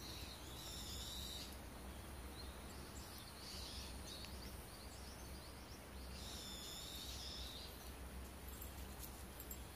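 Faint outdoor ambience with birds calling: two high calls of about a second each, one near the start and one about six seconds in, and a few short chirps between them.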